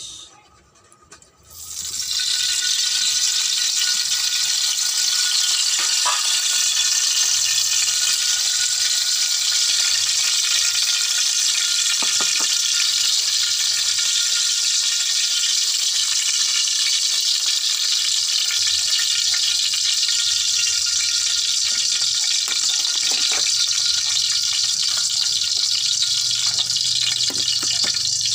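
Hot cooking oil sizzling in a wok, a loud, steady hiss that starts suddenly about two seconds in.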